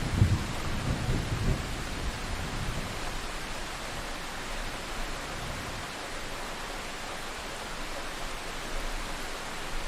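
Thunderstorm: steady heavy rain hiss, with a low roll of thunder in the first couple of seconds that fades away.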